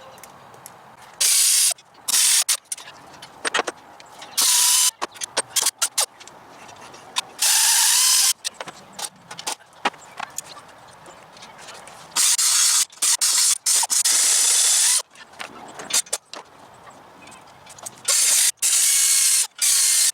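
Small power tool cutting metal in repeated short bursts, from about half a second up to nearly three seconds each. Some bursts open with the whine of the motor spinning up. Between the bursts come clicks and handling knocks.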